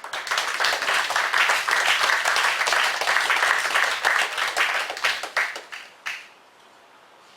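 Congregation applauding: a dense run of many hand claps that dies away after about six seconds.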